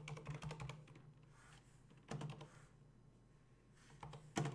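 Typing on a computer keyboard: a quick run of keystrokes at the start, a few more about two seconds in, and another short run near the end.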